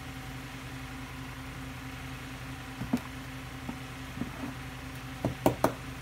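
Small clay plant pot handled and set down on a tabletop: a few faint taps, then a cluster of sharp light knocks near the end, over a steady low hum.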